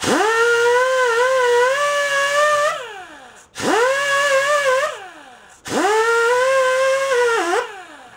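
Drill-driven wire wheel scrubbing rust off the engine shaft in front of a stuck pulley, to clear the path for the pulley to slide off. Three runs: each whines up to speed, wavers under load, then winds down, with short gaps about three and five and a half seconds in.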